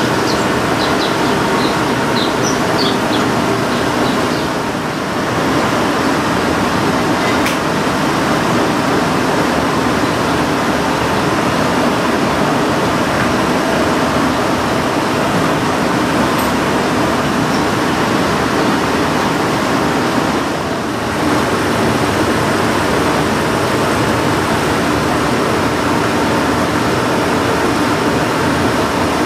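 Cobbler's shoe finishing machine running steadily, its motor and spinning sanding wheels grinding as a rubber shoe sole is pressed against them to trim and sand its edge. The noise briefly drops twice.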